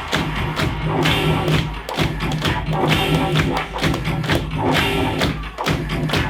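Loud dance music from the DJ, with a heavy thudding beat.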